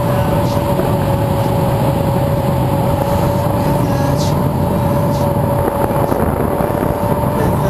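Airflow rushing over the camera microphone in paraglider flight: a loud, steady buffeting with a thin, steady whistle above it.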